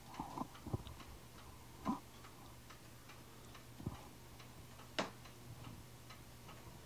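Faint steady low hum with scattered, irregularly spaced clicks and taps, the sharpest about two seconds in and again about five seconds in.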